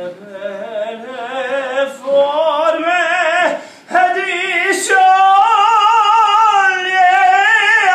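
A woman singing wordless, drawn-out notes into a microphone with a wide vibrato. The first phrase slowly rises in pitch and breaks off about halfway through, and then a long note is held.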